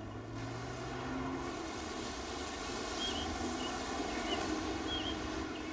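Outdoor ambience: a steady low hum with a soft hiss, and a few short high chirps from about three seconds in.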